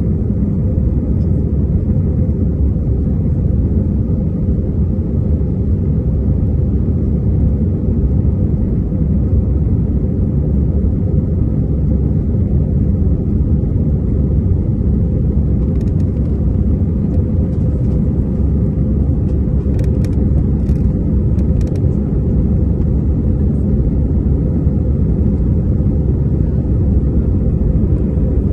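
Steady low rumble inside the cabin of an Airbus A320 in flight: the jet engines and the airflow over the fuselage, even and unbroken, with a few faint clicks a little past the middle.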